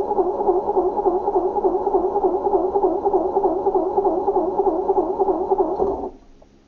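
Old car's starter motor cranking the engine in an even rhythm without it catching, the sign of a car that won't start after sitting; the cranking stops about six seconds in.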